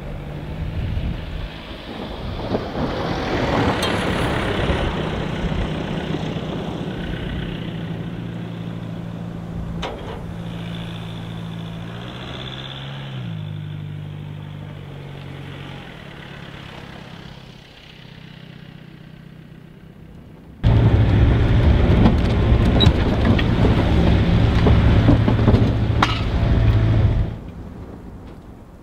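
A 1991 Volkswagen Westfalia van's flat-four engine running as it drives over a gravel and sand wash, with tyre noise swelling as it passes. The engine pitch drops in steps around the middle, and a much louder stretch of engine and tyre noise starts and stops abruptly near the end.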